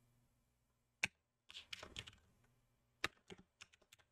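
Faint computer keyboard keystrokes, typed in sparse little runs: a single key about a second in, a quick cluster of keys around two seconds, and a few more from about three seconds on.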